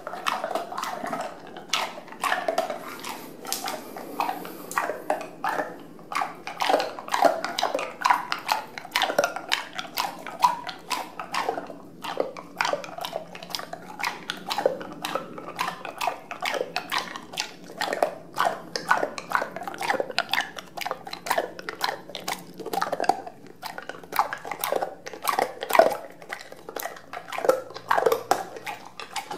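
An American Bully dog crunching ice cubes in her mouth: quick, irregular cracks and crunches, several a second, without a break.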